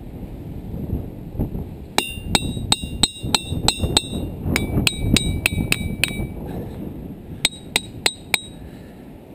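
A hammer striking the diabase boulders of a ringing-rock field, which ring like a bell. Quick strikes come about four a second, each with a clear, bell-like ring. Partway through the pitch changes as a different rock is struck, and three more strikes follow near the end.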